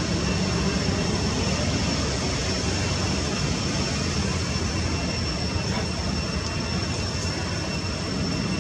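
A steady, unbroken low engine drone, with two thin high steady tones above it.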